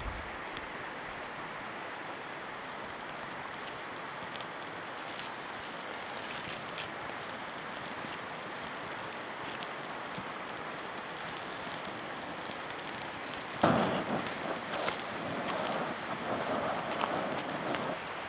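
Steady rushing noise of flowing river water. A sudden thump comes near the end, followed by several seconds of louder, uneven rustling.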